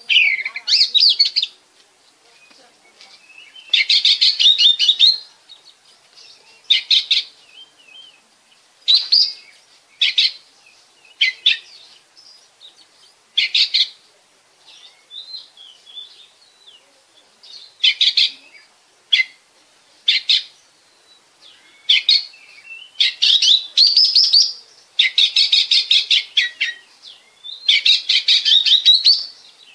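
Oriental magpie-robin (kacer) singing: loud, varied whistled phrases of a second or so, repeated every few seconds with soft twittering between them, the later phrases made of fast runs of repeated notes.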